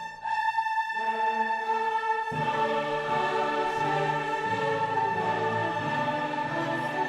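Background music of long held notes, with lower notes coming back in about two seconds in.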